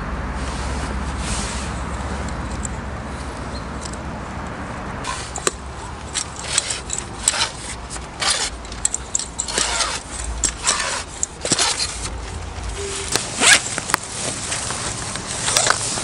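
Fishing tackle handled close up: a run of short clicks, scrapes and rustles as a telescopic float rod is worked and a zippered rod case is opened, busiest from about five seconds in. A low rumble lies under the first twelve seconds or so.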